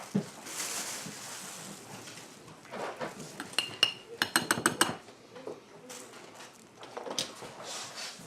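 Metal utensil clinking and tapping against dishes: two ringing clinks, then a quick run of about a dozen taps near the middle, with softer handling noise around them.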